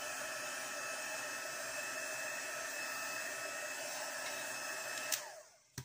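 Handheld craft heat tool running, a steady rush of blown air with a motor whine, drying alcohol ink and blending solution on a canvas. It is switched off with a click about five seconds in and the whine falls away as the fan spins down.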